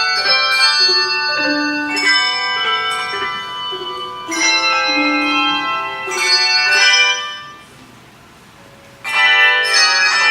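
Handbell choir ringing chords of many bells, each note ringing on and dying away. After a short break about seven and a half seconds in, a loud full chord is struck together.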